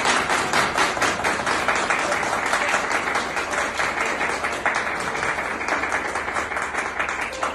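Crowd applauding, many hands clapping in a steady, dense patter.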